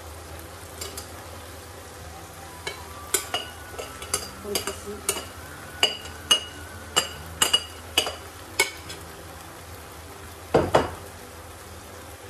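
A metal spoon clinks and scrapes against a glass bowl and a frying pan as rice is spooned into the pan, giving a string of sharp, ringing clinks and a louder knock near the end, over the faint steady sizzle of the pan.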